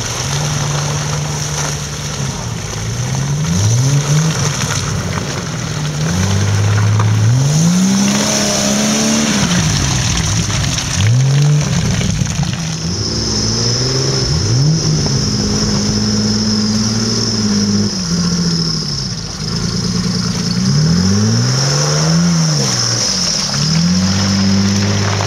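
Off-road 4x4 engine revving hard, over and over: its pitch rises and falls in quick sweeps, with steady held stretches between.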